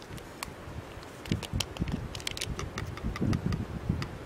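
A small packet being torn open and tipped into a metal cup, crinkling with a scatter of sharp ticks and a few dull knocks from handling.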